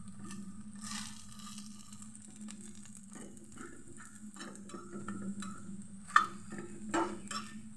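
Pumpkin-flower fritters sizzling in a little oil in a frying pan while a metal spatula scrapes and turns them. A sharp clink of the spatula against the pan about six seconds in, and a smaller one a second later.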